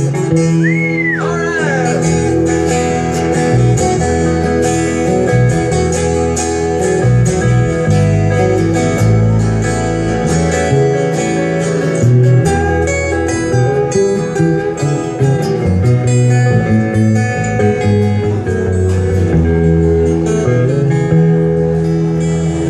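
Live band playing an instrumental break on acoustic guitars, electric guitar and bass guitar, with a steady bass line under plucked and strummed guitar parts.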